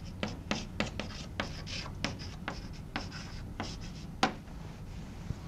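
Chalk writing on a blackboard: a quick, irregular run of sharp taps and short scratches as words are written, with one louder tap about four seconds in.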